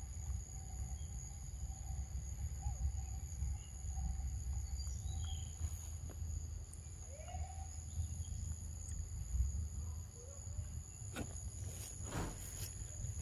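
Outdoor insect chorus: a steady high-pitched drone of crickets or cicadas over a low rumble, with a few faint short bird-like calls. A few sharp clicks or rustles come near the end.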